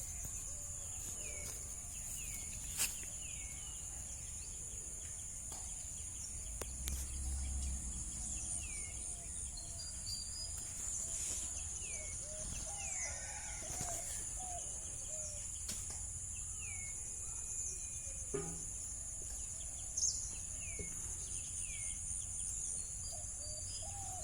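Outdoor ambience: a steady, high-pitched insect drone, with birds giving short, falling chirps now and then.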